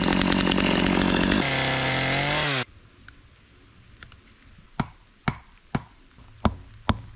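Chainsaw cutting through wood, then settling to a steadier run before cutting off suddenly about two and a half seconds in. Over the last couple of seconds come sharp knocks, about two a second.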